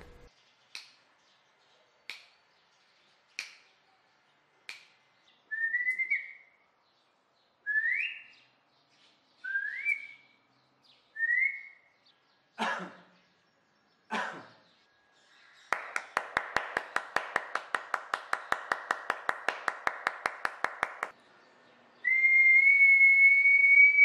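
Whistling at a clap-switch sound sensor: four sharp clicks about a second apart, then four short rising whistles, two sharp claps, a run of rapid ticks lasting about five seconds, and one long held whistle near the end.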